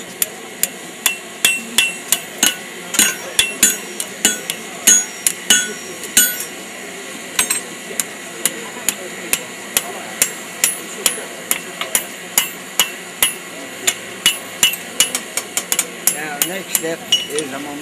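Blacksmith's hand hammer striking a red-hot steel bar on an anvil, about three blows a second, each with a bright metallic ring. The blows break off briefly about six seconds in, then resume.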